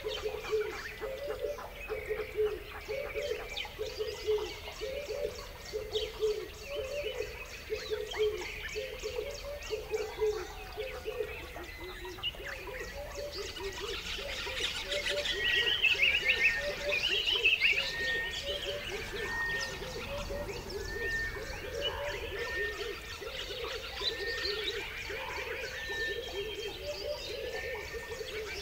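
Birds chirping and calling, with a low call repeated over and over throughout and a spell of busier, louder chirping about halfway through.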